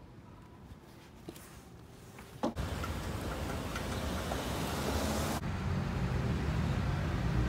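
Quiet with a few faint clicks, then about two and a half seconds in an abrupt cut to road traffic: cars passing, a steady rush with low rumble.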